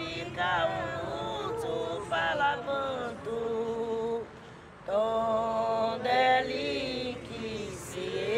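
A single voice singing a slow chant in phrases, with long held notes and a short pause about four seconds in.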